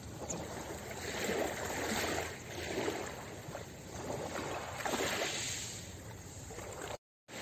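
Small ocean waves lapping onto a pebble shore, swelling and falling back about three times. The sound drops out briefly near the end.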